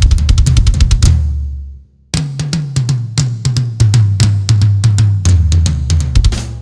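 1994 Tama Rockstar drum kit with fresh heads, not yet tuned, played in fast runs of strokes on the drums with cymbal hits. The playing stops about a second in and rings out, then starts again about two seconds in.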